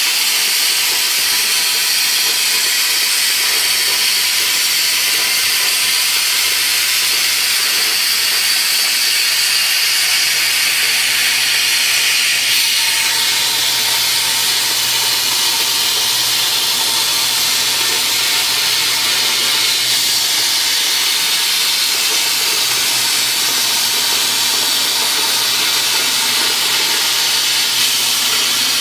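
CNC plasma cutting torch cutting through steel plate: a loud, steady hiss of the plasma arc, holding even throughout.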